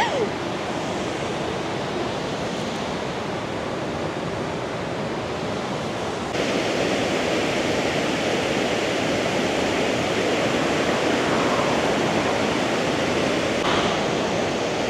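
Whitewater river rapids rushing over rocks in a steady, even wash of water noise, which grows slightly louder about six seconds in.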